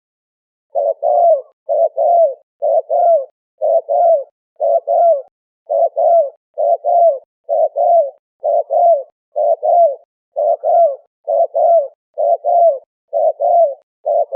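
Spotted dove (terkukur) cooing: a steady run of about fourteen two-note coos, evenly spaced at roughly one a second. The coos start a little under a second in.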